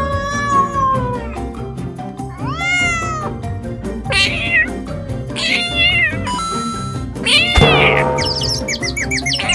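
A cat meowing: a series of about five short meows, the loudest about three-quarters of the way in, over background music.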